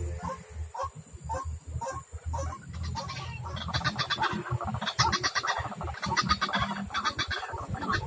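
White-breasted waterhen (ruak-ruak) calling: honking notes repeated about twice a second, breaking into faster, denser chattering from about three seconds in.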